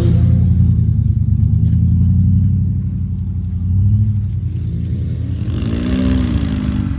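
Off-road truck engine running with a steady low rumble, revving up briefly about four seconds in and again, rising and falling, near the end.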